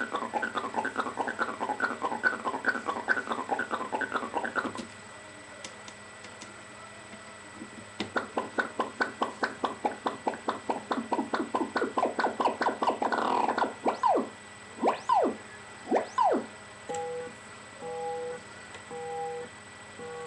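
Doepfer A-100 modular synthesizer (A-110 oscillator, A-141 envelope) playing a rapid train of short plucked notes, each dropping in pitch, that stops about five seconds in. After a pause a faster run of notes starts, followed by a few longer downward-swooping tones and, near the end, slow on-off beeps on two pitches.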